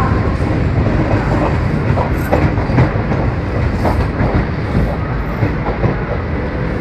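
Passenger train running, heard from on board: a steady rumble of the coach with the wheels clattering irregularly over rail joints.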